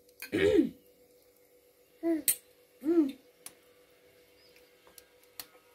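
A toddler making three short sing-song vocal sounds, the pitch rising and falling in each, while being spoon-fed. A few light clicks, like a spoon on a steel bowl, fall between them over a faint steady hum.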